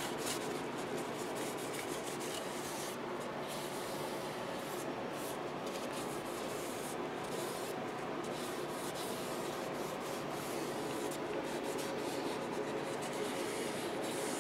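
Steady rubbing and wiping on the wooden body of a guitar while an amber finish is worked into the wood.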